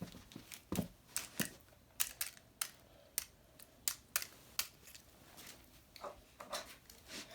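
Plastic toy packaging being handled and pried at, giving irregular sharp clicks and crackles.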